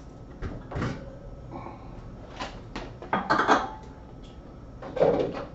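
Plastic fermenter and its parts being handled and taken down from a metal wire shelving rack: a few light knocks, then a louder plastic clatter about three seconds in and another near the end.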